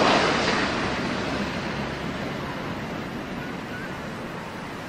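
Twin-engine jet airliner passing low on its landing approach, its engine noise a rushing hiss that fades steadily as it goes by.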